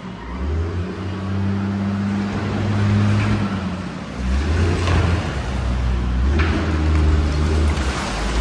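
Caterpillar wheel loader's diesel engine revving up and down as the machine drives and pushes its bucket into a pile of garbage.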